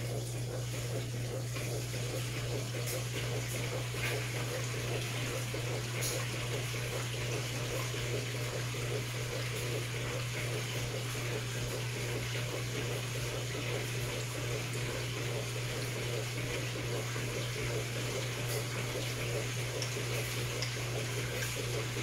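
Electrolux top-load washing machine draining before its spin cycle: the drain pump hums steadily while water rushes out of the tub.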